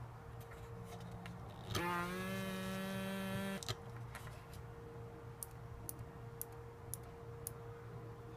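Miniature air-suspension solenoid valve on a 1:24 scale model car buzzing for about two seconds with a hiss of escaping air as the front-axle air bag dumps and the axle drops. Light clicks follow, then a regular run of ticks about two a second.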